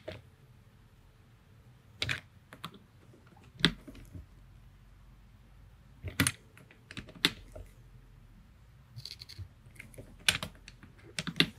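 Irregular sharp metallic clicks and taps of a hex driver working the barrel tensioner screws on an air rifle's action as they are tightened in half turns, back and forth. There are about ten clicks, a few coming in quick pairs, with a small cluster near the end.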